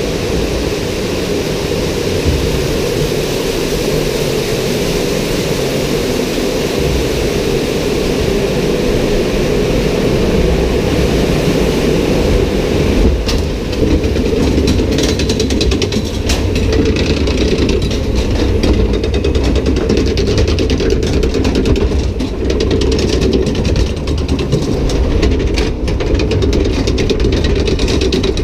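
Log flume ride heard from aboard the boat: a steady rush of water, joined about halfway through by a rapid clattering of the ride's machinery.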